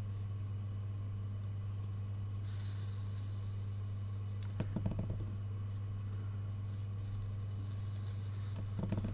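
Soldering iron on solder wick over circuit-board joints, the flux hissing and sizzling in two spells as the solder melts, with a few light taps about halfway through and near the end. A steady low electrical hum runs underneath.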